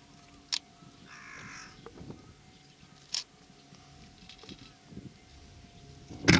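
A crow cawing once, with fainter calls later, over a low distant rumble; sharp clicks twice and a loud knock near the end.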